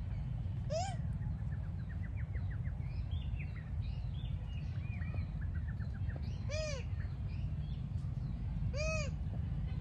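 Animal calls: three short arching calls, about a second in, near six and a half seconds and near nine seconds, with faint rapid chirping in between, over a steady low rumble.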